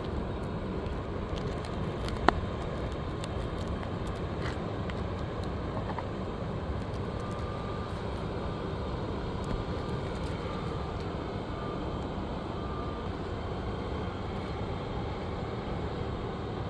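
A hand tool working a roofing nail out from under a 3-tab asphalt shingle: a few faint taps and one sharp click about two seconds in, over a steady background of traffic-like noise.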